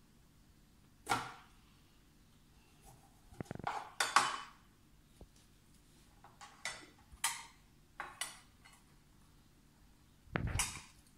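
A knife cutting limes on a plastic cutting board: short, scattered knocks and scrapes. Near the end, a lime half is twisted and pressed on a metal hand citrus juicer.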